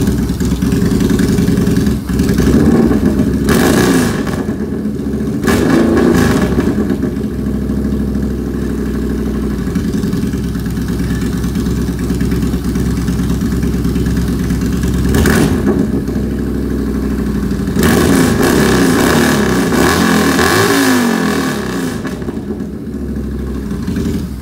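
Yamaha Bolt's 942 cc air-cooled V-twin running loud through a ForceWinder full-system exhaust, revved by hand from idle several times in quick blips, with a longer series of revs past the middle before it settles back down.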